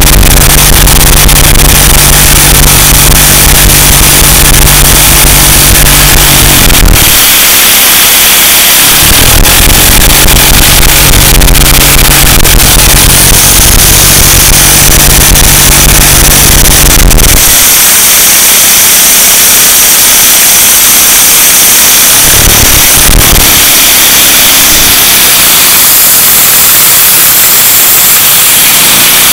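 A one-cylinder LEGO vacuum engine running steadily on its suction line, heard as a loud, constant rushing noise. A low hum under it drops out briefly about seven seconds in, returns, and fades again past the middle.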